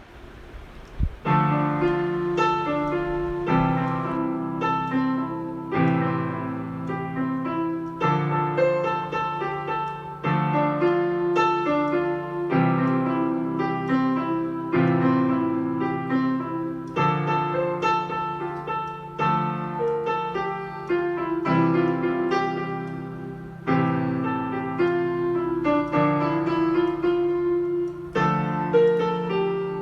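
Yamaha PSR-E473 portable keyboard sounding a piano voice: a slow piece, with a new chord about every two seconds and notes over it, starting about a second in.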